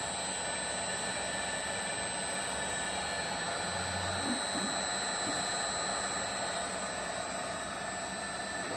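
Emotron 5 hp solar pump VFD running under test: a steady whirr with two steady high-pitched whines. The lower whine fades about six and a half seconds in.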